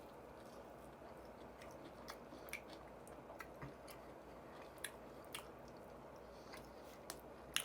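Faint chewing of fried chicken wings: scattered soft, wet mouth clicks over a quiet steady background, one sharper click near the end.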